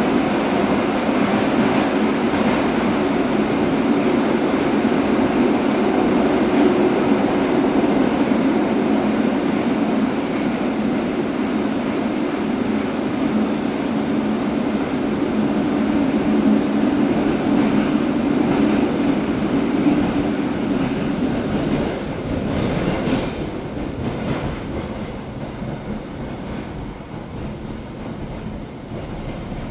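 Metro train running through a tunnel, heard from inside the carriage: a loud, steady rumble of wheels on rails. About 23 seconds in there is a brief high wheel squeal, and then the noise eases off over the last several seconds as the train slows.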